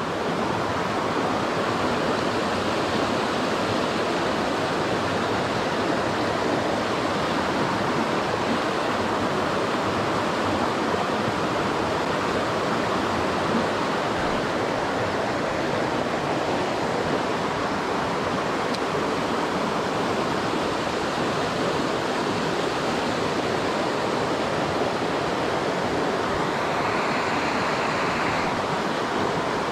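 Creek water rushing steadily, an even, unbroken water noise.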